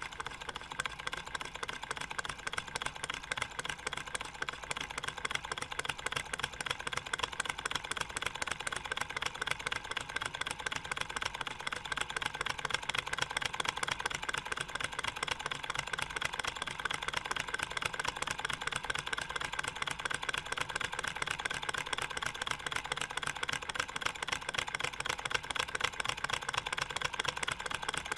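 All-metal model Stirling engine (aluminium alloy and stainless steel) running steadily, its moving parts making a fast, even metallic ticking.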